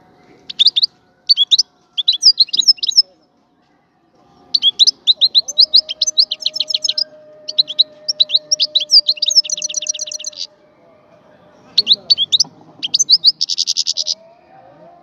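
European goldfinch singing: three phrases of rapid, high twittering notes with short pauses between them, the last ending in a brief buzzy trill near the end.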